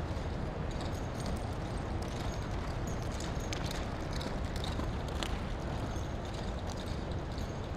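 Faint hoofbeats of a saddled young American Paint Horse filly loping on a lunge line over soft arena dirt, under a steady low rumble.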